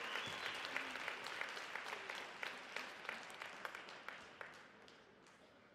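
Rink audience applauding, the clapping thinning out to a few separate claps and fading away.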